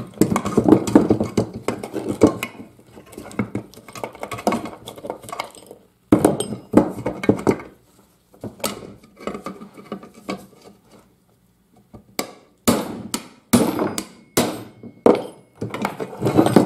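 Metal gearbox parts and tools clanking and clattering as they are handled, in bursts with pauses between. Near the end comes a quick run of about eight sharp metal knocks.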